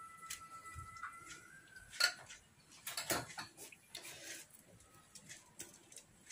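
A steady whistle-like tone for about the first two seconds, then a sharp clack at about two seconds as something is set down. Crinkling of plastic cling film and foil follows as they are handled around the edge of a cake tin.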